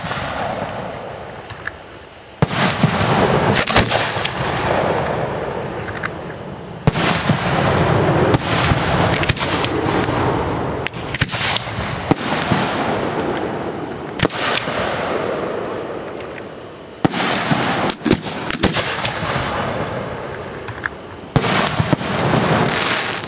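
Aerial fireworks display: a dozen or more loud shell bursts go off one after another, each bang followed by a fading hiss.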